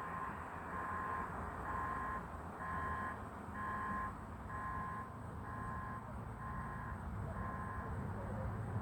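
A work vehicle's reversing alarm beeping about once a second, stopping about eight seconds in, over the low running of a vehicle engine that grows a little louder near the end.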